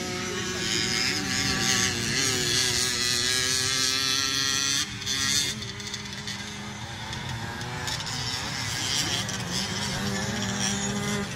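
Several racing motorcycle engines running hard around a dirt track, their pitch rising and falling as the riders open and close the throttle through the turns.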